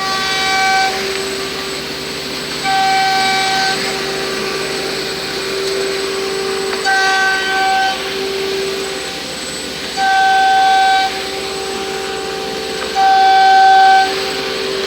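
CNC router running while machining cladding: a steady machine whine throughout, with a louder, higher-pitched tone that comes in for about a second every three to four seconds, five times in all.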